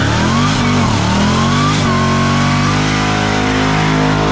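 Ford Mustang V8 revving hard: the engine note climbs twice, dropping back after each, then is held at a steady pitch from about two seconds in.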